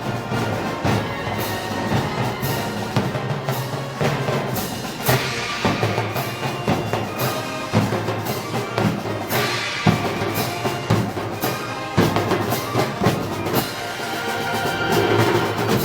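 Moros y Cristianos festival band music with prominent drums.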